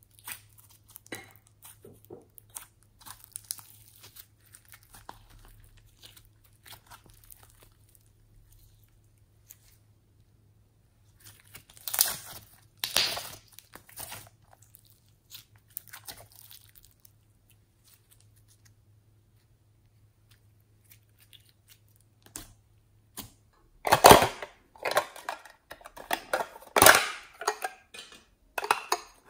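Fluffy glitter slime squeezed and pressed by hand, crackling and popping in scattered bursts, loudest a little under halfway through. It falls quiet for several seconds, then a run of louder clicks and crackles comes near the end. A faint low hum sits under the first part.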